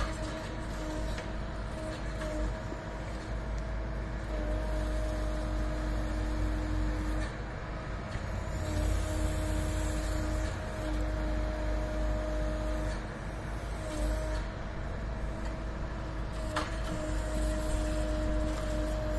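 Compact track loader's diesel engine running under load, with a steady whine that breaks off and resumes every few seconds as its backhoe attachment digs.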